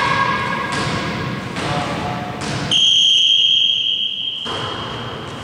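Volleyball referee's whistle blown once, a long steady blast starting about halfway through, over the hall noise of players and ball thumps.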